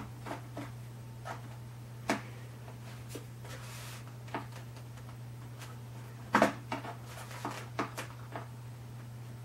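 Light clicks and taps of a screwdriver being tried on a screw and handled against a foam RC model plane, scattered through, with the loudest cluster of knocks about six and a half seconds in and a brief rustle near four seconds. A steady low hum runs underneath.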